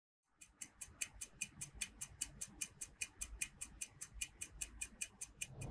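Stopwatch ticking sound effect: quick, even ticks, about five a second, starting about half a second in.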